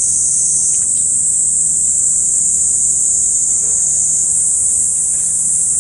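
Insects singing in a continuous, loud, high-pitched chorus, with a faint steady low hum underneath.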